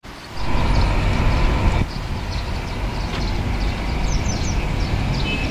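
Sandstorm wind buffeting the microphone: a dense, steady low rumble and rushing noise. A few short high chirps come about four seconds in.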